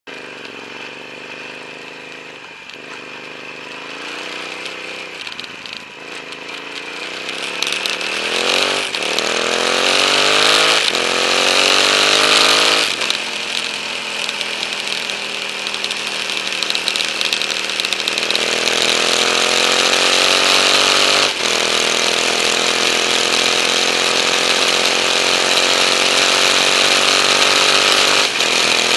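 KTM 950 Adventure's V-twin engine pulling away and accelerating through the gears: the pitch climbs and drops back at each of several quick upshifts, then settles into a steady cruise with one more shift later on. Wind noise grows louder with speed.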